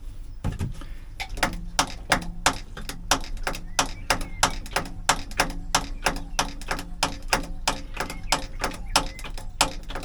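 Hand-operated oil extraction pump being worked in quick, even strokes, clicking about three times a second as it sucks warm engine oil out of the sump.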